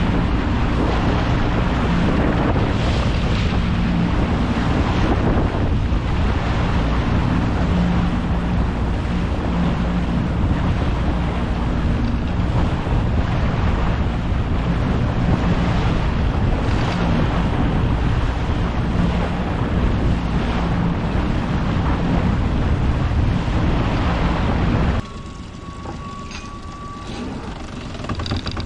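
Small boat running under engine power, with wind buffeting the microphone and water rushing past over a steady engine hum. About 25 seconds in, the wind and water noise cut off suddenly, leaving a quieter engine hum.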